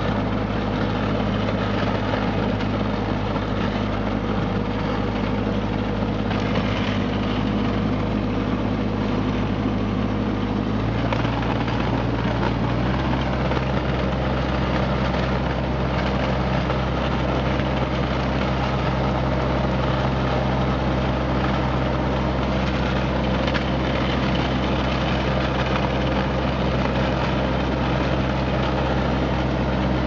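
John Deere X495 garden tractor's three-cylinder diesel engine running steadily under load as the tractor pushes snow with its front blade. The engine note shifts about 11 seconds in and again about 13 seconds in.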